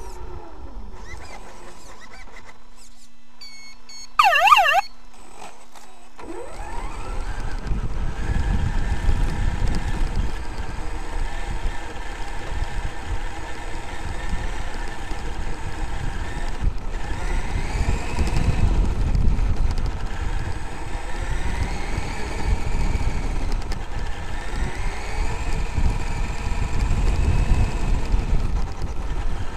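Traxxas X-Maxx electric RC monster truck driving off, heard from on board: its motor whine rises in pitch with each burst of throttle over a steady rumble of tyres and jolts on grass and dirt. A short warbling tone sounds about four seconds in, before the truck sets off.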